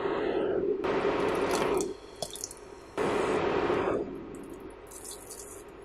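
Ground ginger shaken from a plastic shaker and fennel seeds poured from a jar into a pot of thick tamarind-date chutney: two stretches of even, pouring hiss, the first about two seconds long and the second a second long starting about three seconds in, over a softer steady background.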